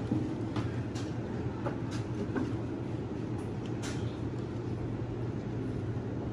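Scattered light clicks and taps of a compression-gauge hose and its threaded fitting being handled among the engine parts, over a steady low hum.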